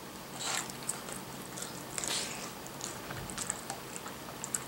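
Soft eating sounds: chewing, with scattered small clicks and scrapes of a plastic spoon against a plastic takeout container.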